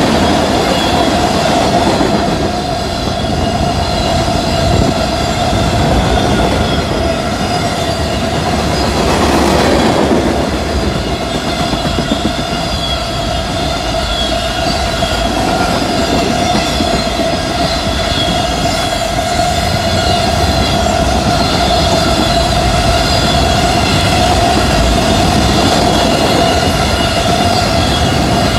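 BNSF freight train's cars rolling past close by: a loud, steady rumble with a continuous high squeal from the wheels on the rail.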